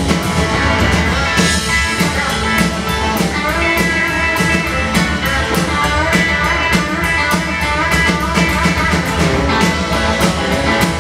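Live rock and roll band playing an instrumental break, with a lead instrument over a steady drum beat.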